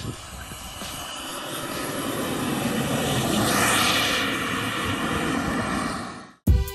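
Turbine engine of a radio-controlled model jet passing low along the runway: a rushing jet noise that swells to its loudest about four seconds in, then fades, and cuts off suddenly near the end.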